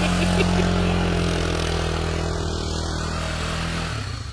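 Vehicle engine running steadily under load, then easing off about four seconds in.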